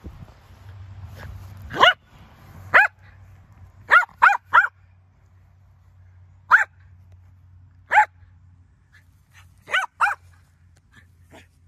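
Small terrier barking in short, sharp, high-pitched yaps during ball play: about nine barks with uneven gaps, including a quick triple and a quick double.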